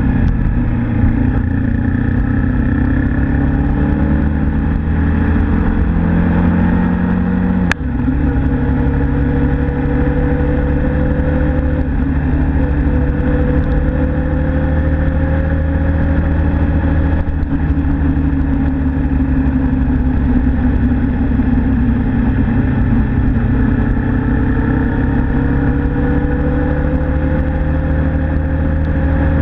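Suzuki Inazuma GW250's parallel-twin engine running under way, its pitch rising slowly several times as it accelerates. About eight seconds in there is a click and a sudden drop in engine pitch, as at a gear change.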